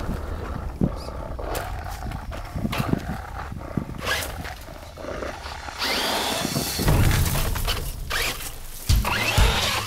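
Electric motor of a Traxxas Slash 4X4 RC truck spinning up, its tyres churning and flinging dirt, about six seconds in, after scattered clicks and knocks. From about nine seconds there are regular low thumps.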